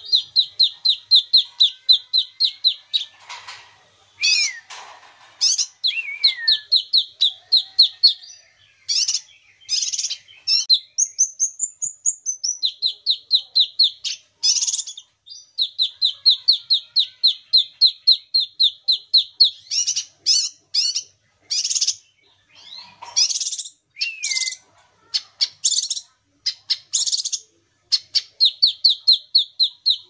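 Kinoi leafbird singing: long runs of a quick repeated chirp, about three or four a second, broken up by harsher mixed notes and a few slurred whistles that rise and fall.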